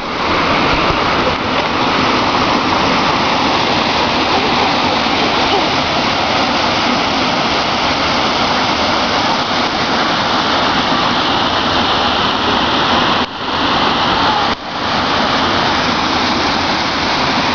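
Waterfall rushing close to the microphone, a loud steady roar of falling water that drops out briefly twice near the end.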